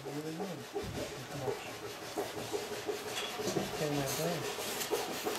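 Dry rubbing and scraping on thin bent wooden staves for a setar bowl as they are handled and worked by hand.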